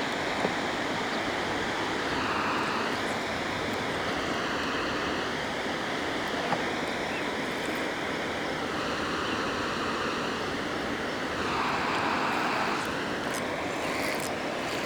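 Boat's electric trolling motor running, its propeller churning water through weeds. The motor gives a faint whine that wavers in pitch over a steady water rush.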